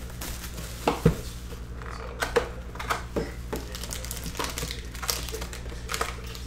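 Plastic shrink wrap crinkling as it is pulled off a trading-card box, then foil card packs rustling and tapping as they are lifted out of the box, in scattered short rustles and clicks. A faint steady hum sits underneath.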